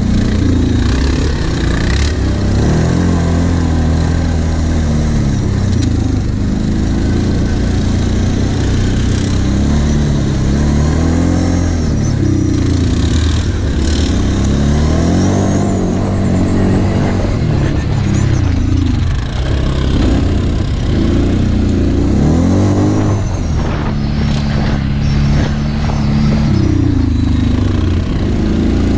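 Quad bike (ATV) engine running under riding load, its pitch rising and falling over and over as the throttle is opened and eased, with a few knocks and rattles near the end.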